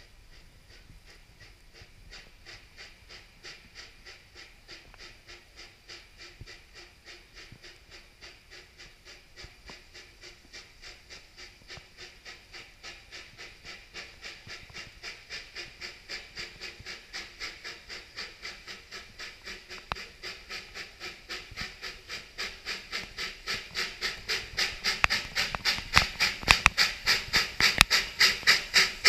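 Narrow-gauge steam locomotive working up a grade, its exhaust chuffing in an even beat of about two and a half a second and growing steadily louder as it approaches. Near the end there are a few sharp clicks.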